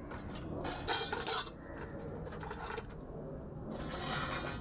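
Stainless steel pots, plates and bowls clattering and scraping against each other as they are handled, in two bursts: about a second in and again near the end.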